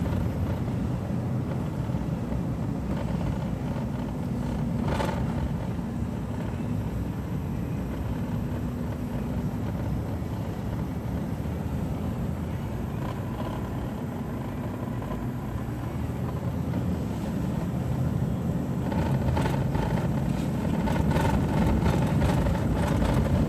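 Car driving along, heard from inside the cabin: steady engine and road rumble, with a brief sharper noise about five seconds in and the rumble growing a little louder near the end.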